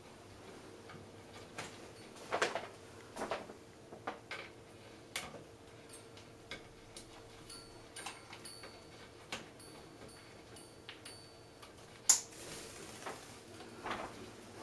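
Irregular knocks, taps and scrapes from an African grey parrot clambering inside a hanging tube toy, its beak and claws striking the tube wall, with one sharp knock near the end.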